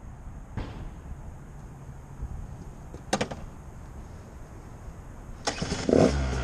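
Two-stroke engine of a 2018 Husqvarna TE 150 enduro motorcycle starting: a couple of clicks, then the engine fires about five and a half seconds in with a loud burst and settles into a steady idle.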